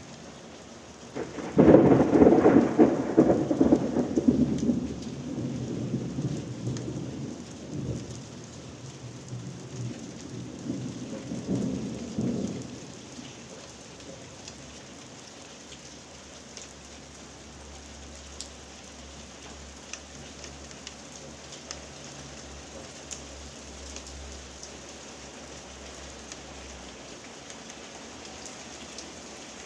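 Thunderclap a second and a half in, rolling and fading over several seconds, then a second rumble about ten seconds later. Steady rain throughout.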